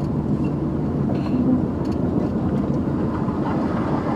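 Loaded truck driving, with steady engine and road noise.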